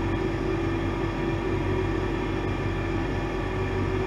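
Steady mechanical hum with a constant low drone that does not change.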